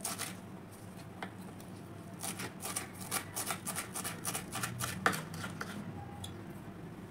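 Kitchen knife chopping fresh coriander leaves on a wooden cutting board: quick repeated strikes of the blade through the leaves onto the wood, about four a second from about two seconds in, with one louder knock about five seconds in.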